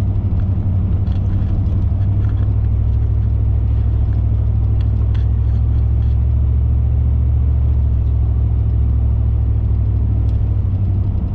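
A car being driven at a steady pace: an even, loud low rumble of engine and tyres on the road.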